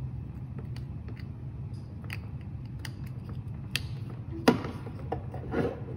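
USB cable plug being worked into an Arduino board's USB socket by hand: small clicks and scrapes of handling, a sharp click about four and a half seconds in as the plug seats, then a brief rustle of the cable. A steady low hum sits underneath.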